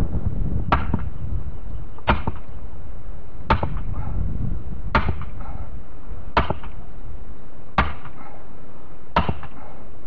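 Heavy, evenly spaced blows driving a fence post into the ground, seven strikes about one and a half seconds apart.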